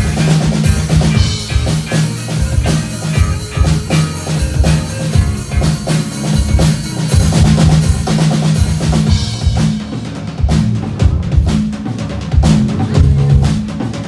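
Live rock band playing loudly: drum kit, bass guitar and electric guitars. About ten seconds in, the bright top of the sound thins out and the drum hits stand out.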